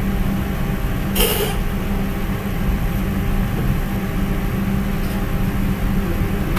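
Steady low hum with an even hiss, with one short noisy burst about a second in.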